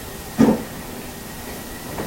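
A single short knock about half a second in, over a steady background hiss.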